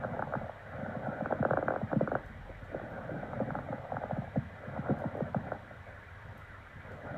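Normal vesicular breath sounds heard through a stethoscope: a low, crackly sound of air moving in the lungs. It is louder for the first two or three seconds and softer near the end.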